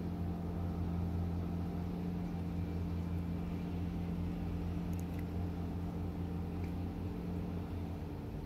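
A steady low mechanical hum from a running motor, its pitch unchanging, easing off slightly near the end.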